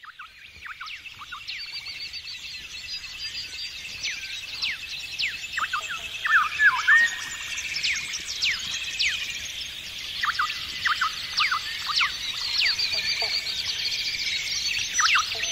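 A dense chorus of birdsong: many quick falling whistles and short chirps over a steady twittering background. It fades in at the start.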